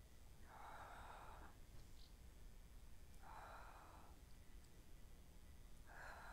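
A woman's faint, audible exhalations, three breaths about every two and a half to three seconds, paced with each repetition of a side-lying Pilates crunch.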